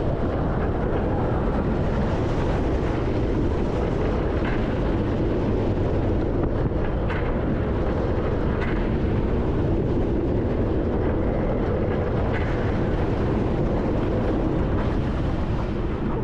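Iron Gwazi hybrid roller coaster train running at speed, heard from the front seat: a steady, loud rumble of the wheels on the steel track mixed with wind rushing over the microphone.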